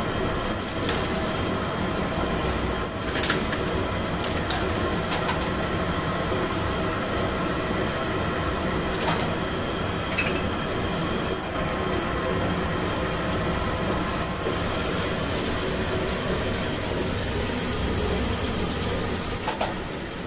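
Mysore bondas deep-frying in a kadai of hot oil: a steady sizzle, with a few sharp metal clinks as the slotted ladle lifts batches out.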